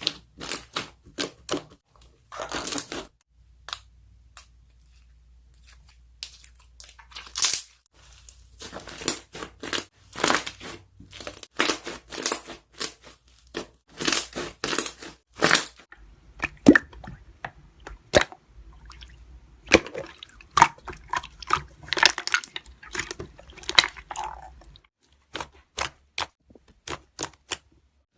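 Slime being pressed and worked by hand, trapped air bubbles popping in quick crackly clicks and wet squishes. There is a quieter lull a few seconds in, then a dense run of pops resumes.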